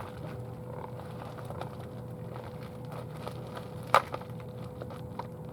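Packaging being handled and opened: small scattered clicks and crackles, with one sharp click about four seconds in, over a faint steady hum.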